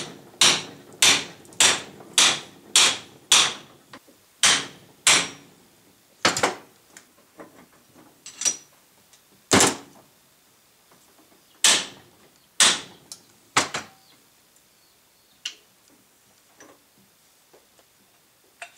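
Hammer blows on the steel yoke of a truck driveshaft U-joint, used in place of a press. A quick run of about seven strikes, roughly two a second, then single blows a second or more apart, some with a brief metallic ring, tapering to a few lighter taps near the end.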